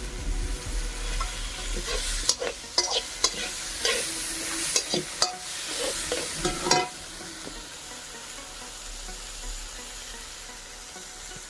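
Food sizzling as it fries in a pan, with a spoon or spatula stirring and scraping against the pan in a run of sharp clicks through the middle. Near the end the stirring stops and the sizzle settles lower.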